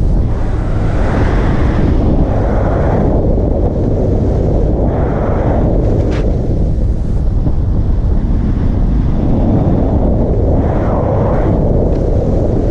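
Loud wind buffeting the microphone of a camera on a moving vehicle, a steady low rumble that swells in gusts, with road noise underneath.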